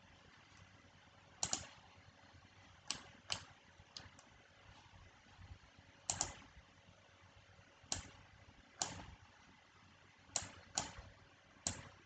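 Scattered single clicks of computer keys, about ten, spaced irregularly a second or more apart.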